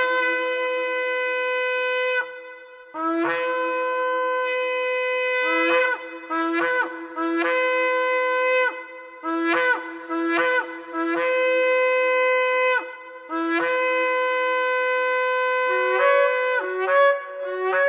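Shofar blown in a series of long blasts. Each starts on a low note and leaps up to a higher one held for about two seconds. Short, rapid broken notes come twice between the long ones.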